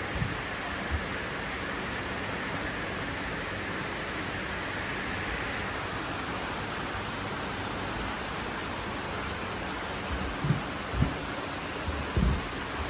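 Steady rushing of water running and bubbling in koi ponds, with pond aeration. A few short dull thumps come near the end.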